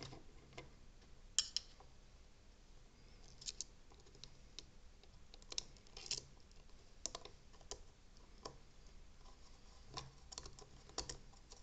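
Faint, irregular small metal clicks and taps as the tiny cheese-headed locking screw is fiddled into the propeller nut by hand, about a dozen over the stretch.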